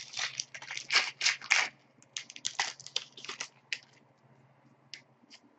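Crinkling and ripping of a hockey card pack's wrapper as it is torn open and the cards handled: a quick run of crisp rustles for about four seconds, then a few faint ticks.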